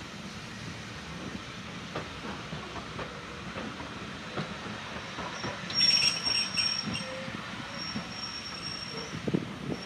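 Railway carriages rolling past, with wheels clicking over the rail joints. About six seconds in, a loud, high-pitched wheel squeal rings for about a second, and fainter squeals at the same pitch return later.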